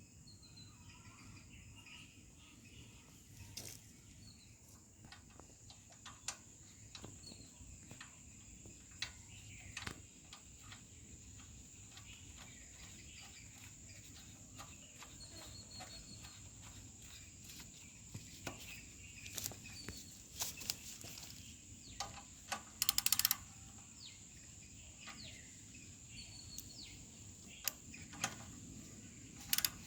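Faint metallic clicks and knocks of a box spanner and the oil drain plug being refitted to a four-stroke petrol generator's sump, with a short louder rattle about two-thirds of the way through. A steady high insect drone runs underneath.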